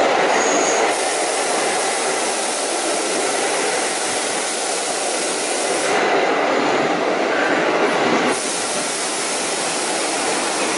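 Stainless-steel New York City subway train moving slowly along the station platform: a steady rumble and hiss of steel wheels on the rails.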